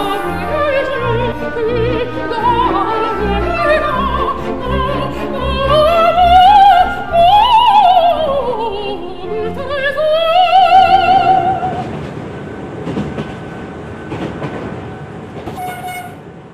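Operatic singing with a strong vibrato over musical accompaniment, which ends about twelve seconds in. After it comes a steady rushing noise of a train in motion, fading toward the end.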